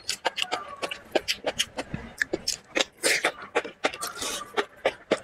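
Close-miked eating sounds: a rapid run of wet mouth clicks and lip smacks from chewing chili-covered noodles, with slurps of noodles around the middle.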